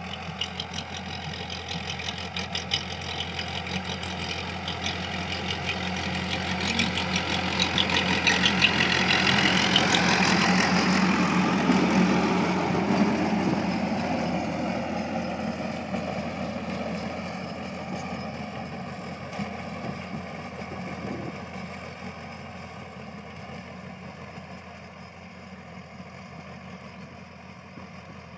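Tractor diesel engine running steadily under load while pulling a rotary tiller through the soil. It grows louder, with a dense rattling clatter, as it comes close about ten seconds in, then fades gradually as it works away.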